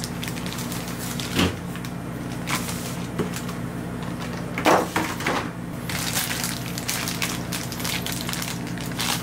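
Packaging of a boxed anime figure being handled and opened: scattered sharp clicks and crinkles, turning into denser crackling from about six seconds in.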